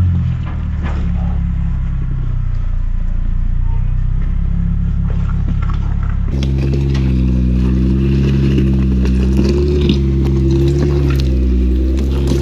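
Jeep Wrangler engine running at low revs as it crawls over rock ledges, with a few short clicks and scrapes of tyres and rock. About six seconds in the sound jumps to a fuller, clearer engine note that rises and falls slightly with the throttle.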